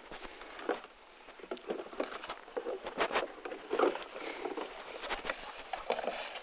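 Dogs moving about: an irregular patter of paws with scattered clicks and scuffs.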